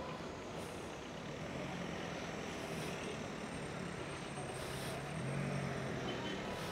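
Road traffic: vehicle engines running steadily, with one growing louder about five seconds in.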